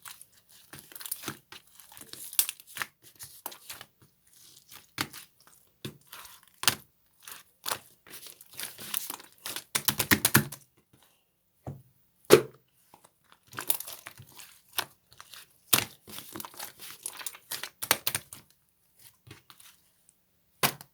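Close handling of crinkly material: irregular crinkling, rustling and tearing, with a dense run of crackles about halfway through and a single sharp snap shortly after.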